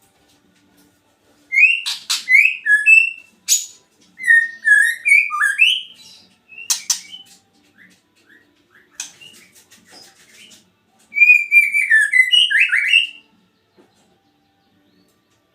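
White-rumped shama (murai batu) singing: about five bursts of rich, varied whistled phrases mixed with sharp harsh notes, with short pauses between the bursts.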